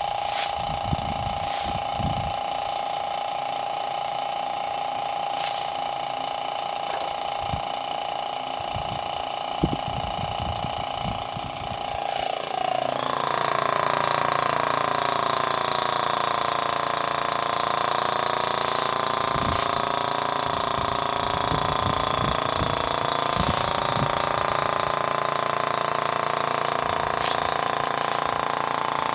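A/C vacuum pump running steadily, pulling vacuum on a car's air-conditioning system, with a few light knocks of handling. About twelve seconds in, its sound changes and it grows louder, then runs on steadily.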